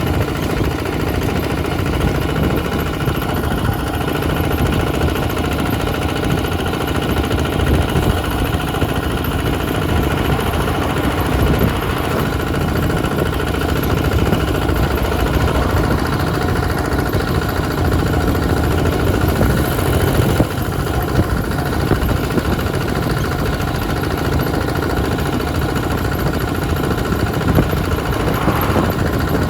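Two-wheel hand tractor's engine running steadily.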